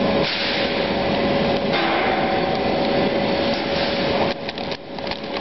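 Belt-type nut roasting machine running with a steady whirring rush and a constant hum. A bit past the midpoint the rush dips and a plastic bag crinkles and clicks as pine nuts are poured out of it onto the wire-mesh belt.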